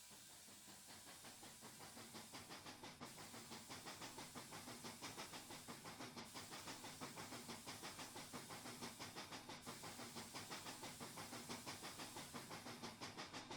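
Pennsylvania Railroad steam locomotives 7002 and 1223 working a doubleheader train, faint and drawing nearer: rapid, even beats with a hiss, growing steadily louder.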